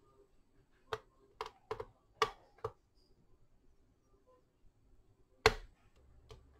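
Light, sharp plastic-and-metal clicks and taps of multimeter test probes being handled and touched against a battery pack's terminals. About six quick taps come in under two seconds, then a single louder click about five and a half seconds in.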